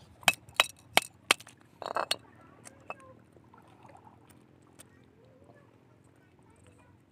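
Four sharp clinks of hard objects knocking together, about a third of a second apart, then a short rustle about two seconds in.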